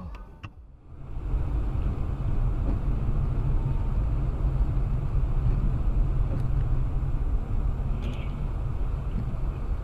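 After a quiet first second, a car driving on a snowy road is heard from inside the cabin: a steady low rumble of engine and tyre noise.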